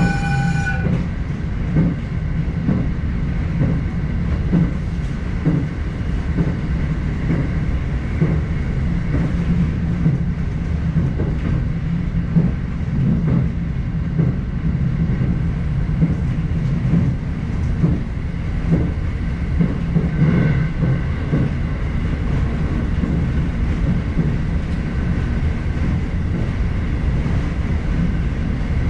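Electric commuter train running at speed, heard from inside the car: a steady low rumble with irregular clicks of the wheels over the track. A high squeal cuts off about a second in, and a fainter one comes and goes about two-thirds of the way through.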